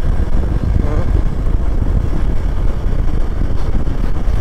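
Steady low rumble of a moving vehicle on the road: engine and road noise.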